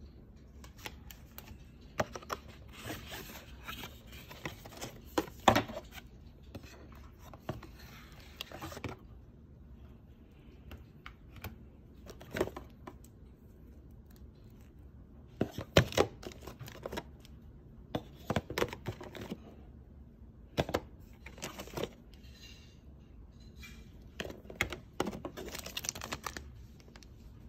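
Unboxing handling sounds: plastic bags and a cardboard box rustling and crinkling, with scattered clicks and taps. They come in bursts with quieter gaps between.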